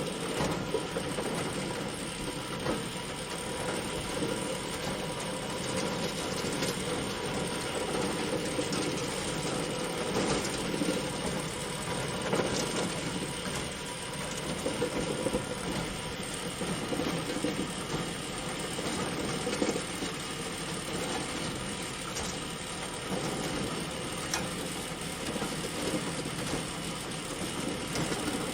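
Bale elevator running, a steady mechanical clatter with scattered clicks.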